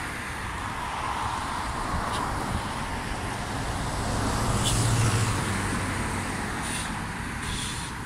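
Road traffic noise, with one vehicle passing, loudest about five seconds in.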